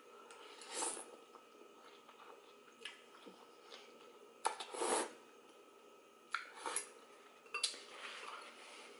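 Eating ramen noodles: a metal fork clinks and scrapes against a glass bowl, with a few short slurps and chewing, the loudest about five seconds in.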